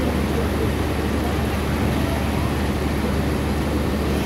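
Steady low drone of a passenger train creeping along the platform at very low speed, heard from a carriage window.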